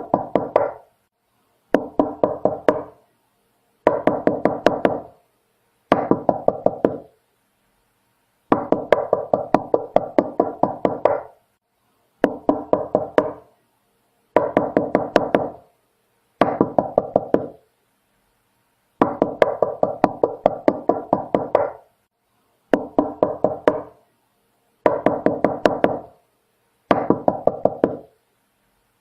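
Knocking on a door: about a dozen bursts of quick knocks in a row, each burst lasting one to three seconds, with short silent gaps between them.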